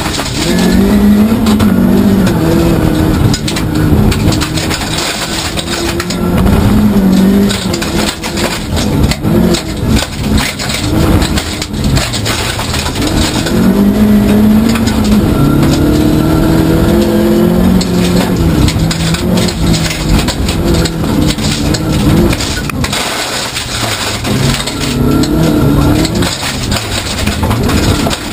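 Rally car engine heard from inside the cabin, driven hard on a gravel stage. It revs up repeatedly and drops back in pitch at each gearshift or lift, over constant road and gravel noise.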